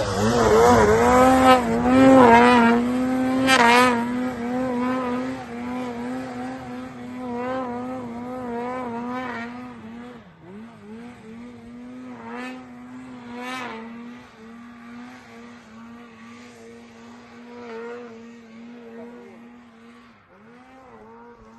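Snowmobile engine revving repeatedly, its pitch rising and falling in quick blips over the first few seconds, then running more steadily while growing fainter.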